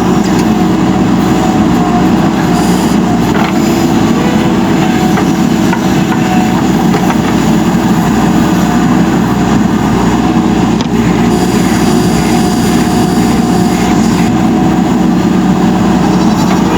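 JCB 3DX Super backhoe loader's diesel engine running steadily, with a couple of brief knocks from the machine.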